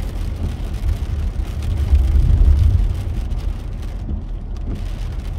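A car driving on a wet road, heard from inside the cabin: a steady low road rumble with a faint tyre hiss, swelling briefly about two seconds in.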